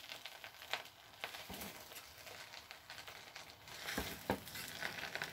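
Wooden spoon stirring and turning jollof rice in a non-stick pot: a soft rustling scrape of the rice, with a few sharp knocks of the spoon against the pot, over a faint sizzle.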